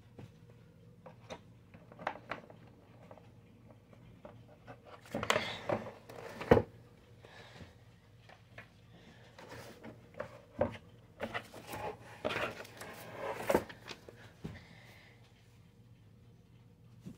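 Cardboard packaging being handled as a wall clock is lifted out of its box: rubbing and scraping with scattered clicks and knocks, including a sharp knock about six and a half seconds in. Further cardboard and paper rustling comes in bursts later on.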